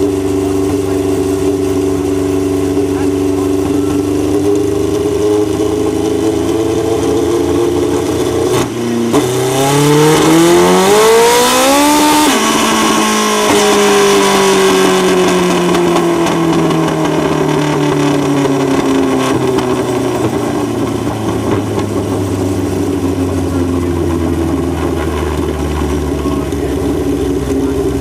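Kawasaki drag bike engine running on a chassis dyno: steady for about eight seconds, then a dyno pull with the revs rising for about three seconds before the throttle is shut sharply. The revs then fall slowly over about seven seconds, and the engine settles back to a steady run.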